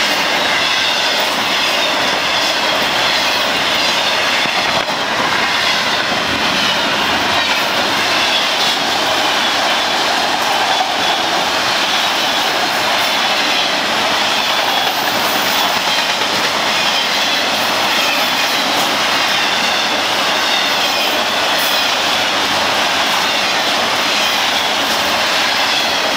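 Florida East Coast Railway freight train's cars rolling past: a steady rush of steel wheels on rail, with a wavering high squeal over it.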